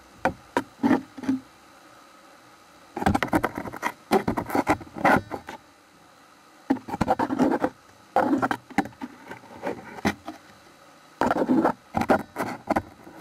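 A chimpanzee's stick tool scraping and knocking against the camera close to the microphone, in about five bursts of rapid scratches and taps with short pauses between.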